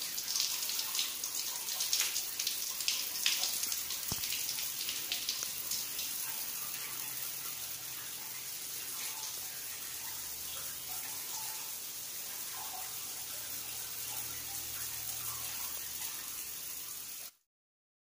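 Shower running: water spraying from the shower head and splashing on a tiled floor, crackly with drips at first, then an even hiss that stops suddenly near the end.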